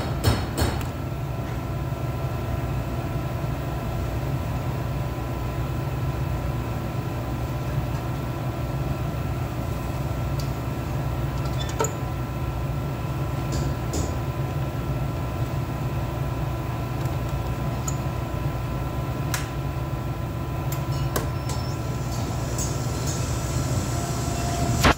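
Steady low mechanical hum, with a few light clicks and taps as the alternator is wired up and the belt guard is handled on the test bench.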